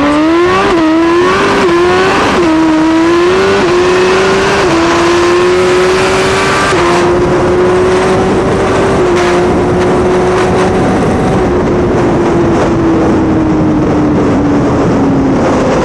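Turbocharged 2023 Suzuki Hayabusa inline-four at wide-open throttle, pulling hard through the gears. The engine note climbs and drops at each upshift, quickly at first and then with longer pulls in the higher gears. Heavy wind rush is heard over the bike-mounted camera. Near the end the pitch sinks slowly as the throttle is rolled off.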